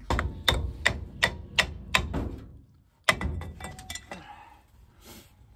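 Sharp metal knocks, seven evenly spaced blows about three a second, like a hammer working loose a seized part during a brake strip-down. A short gap follows, then a quick run of lighter metallic clicks.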